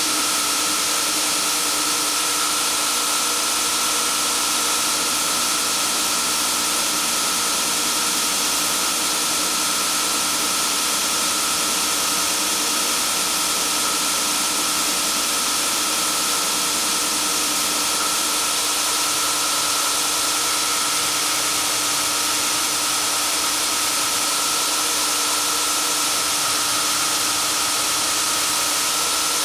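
Belt grinder running steadily, its abrasive belt grinding the knife's handle against the contact wheel: an even, hissing grind over a constant machine whine.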